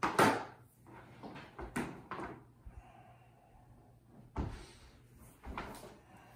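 Several knocks and clatters of things being handled, the loudest right at the start, with more about two seconds in, then again past four and near six seconds.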